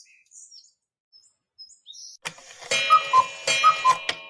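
Birds chirping for the first second or so, then from about two seconds in a loud transition jingle: bright bell-like chime notes in two falling pairs over a few sharp hits, ringing on at the end.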